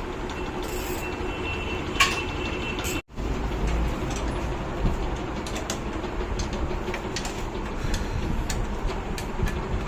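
Steady low rumble with scattered light metallic clicks and taps, typical of hand tools at work on a motorcycle being taken apart. The sound cuts out for an instant about three seconds in and comes back with a little more low rumble.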